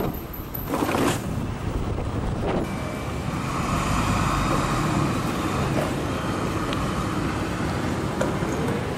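Road traffic noise: motor vehicles passing by, heard as a steady rushing.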